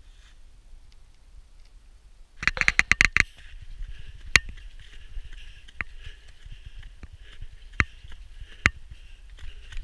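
Runners' footsteps on a leaf-covered woodland trail with rustling of leaves and undergrowth, and now and then a sharp knock. A quick rapid clatter about two and a half seconds in is the loudest sound.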